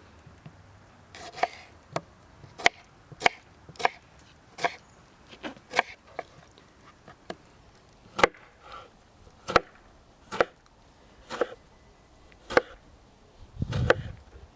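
Chopping: a blade striking down onto wood again and again, about one to two sharp strikes a second, with a heavier, longer thump near the end.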